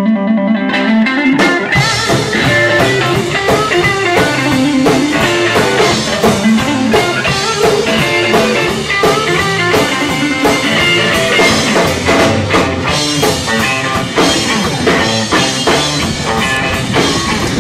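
Blues-rock music with electric guitar and drum kit; the full band comes in about a second in after a held guitar chord.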